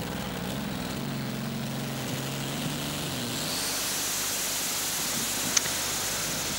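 Modified pulling tractor's large V engine running hard under load during a pull, a steady drone. About halfway through a higher hiss and a faint rising whine come in, and there is one sharp click about five and a half seconds in.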